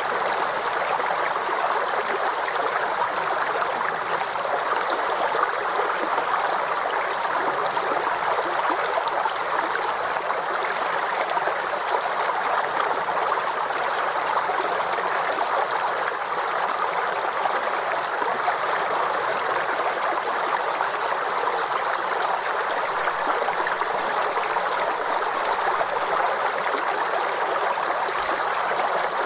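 Forest stream flowing, a steady rush and babble of water over stones with no change.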